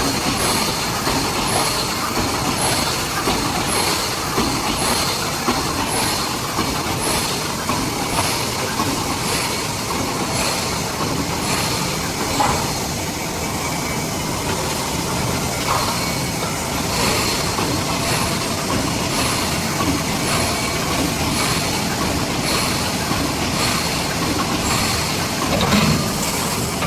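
Automatic rebar mesh welding machine running, a continuous mechanical clatter with a repeating stroke about once a second, as the line feeds and welds the mesh.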